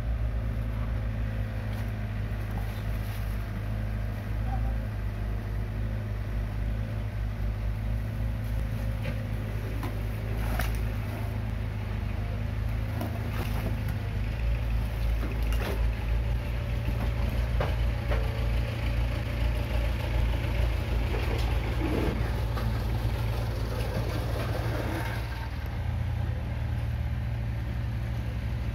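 Komatsu PC45 mini excavator's diesel engine running steadily while the boom lifts a slung concrete drain section, with a few sharp knocks here and there.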